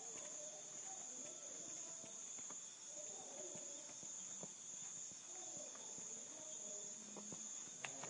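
Faint background noise: a steady high-pitched whine or hiss, with a few soft faint clicks.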